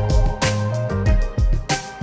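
Background music with a steady drum beat and held chords.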